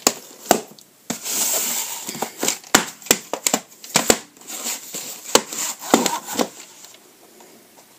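A VHS cassette and its cardboard sleeve being handled: the sleeve scrapes and rustles as the tape is slid in and out, with sharp plastic clicks and knocks of the cassette. The handling stops about two-thirds of the way through.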